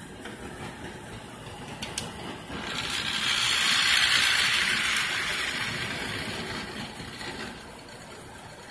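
A small click about two seconds in, then a model train's electric locomotive and freight cars run past on floor-laid track, a motor whir and wheel rattle that swells to a peak about four seconds in and fades away.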